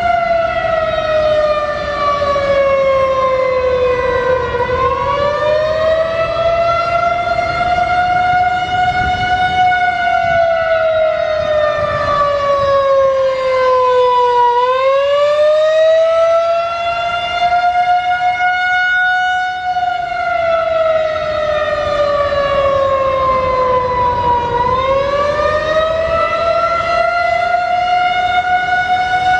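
Federal Signal 2001-130 outdoor warning siren sounding a wail. A single loud tone rises slowly for about five seconds, then falls for about five, over and over.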